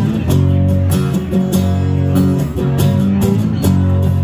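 Live instrumental passage of a song: acoustic guitar strumming in a steady rhythm over sustained electric bass notes.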